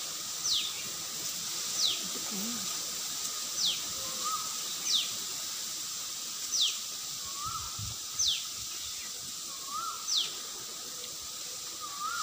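Bird calling repeatedly with a short, high whistle that slides steeply down in pitch, about seven times at intervals of a second and a half. A shorter, lower note that rises and falls comes in four times between the whistles.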